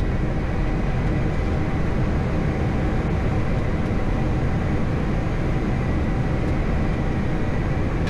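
Steady rumble and rush of airflow and engine noise inside an Embraer 175 flight deck during descent on approach, with a faint steady high tone.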